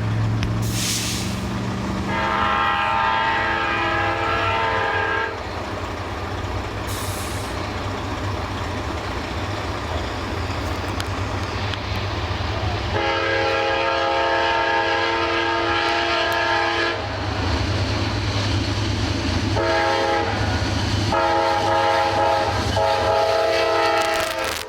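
Amtrak passenger train's locomotive horn sounding over the rumble of the passing train: two long blasts, then three shorter ones near the end. The horn overloads the camera's built-in microphone.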